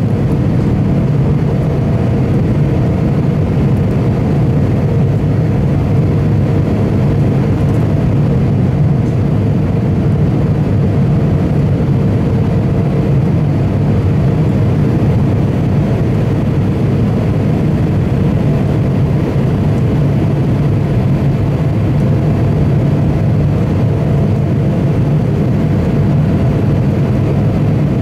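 Steady cabin noise of an Embraer E170 in its climb after takeoff, heard inside the cabin: a loud, even rumble from its two GE CF34-8E turbofan engines and the airflow, with a faint steady hum above it.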